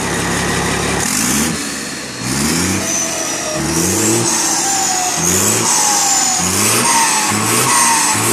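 Turbo-diesel engine of a parked Mercedes 1318 bus, its turbocharger fitted with a 'pente' modification so that it whistles, idling for about a second and then revved in repeated short blips about once a second. Each blip brings a high turbo whistle that falls in pitch as the revs drop: the turbo 'singing' while the bus stands still.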